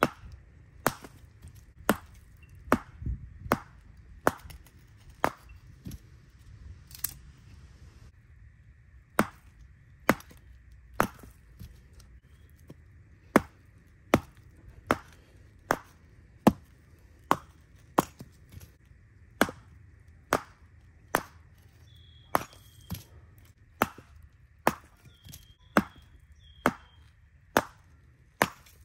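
Firewood being chopped: a steady series of sharp chopping cracks, about one a second, with a short pause partway through.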